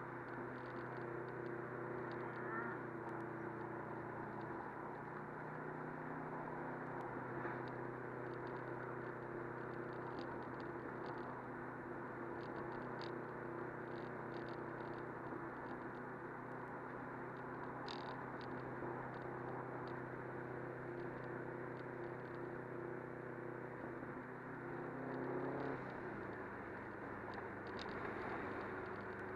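Subaru WRX's turbocharged flat-four engine running at a steady cruise with road noise, heard from inside the cabin, with scattered faint ticks. Near the end the engine note climbs briefly and then settles lower.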